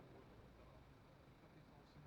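Near silence: faint low background noise.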